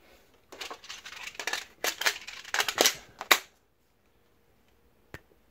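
Magazine of a Sig Sauer MPX .177 CO2 pellet rifle being slid into the magazine well, with scraping and rattling and several sharp clicks, the loudest about three seconds in as it seats. One more single click comes near the end.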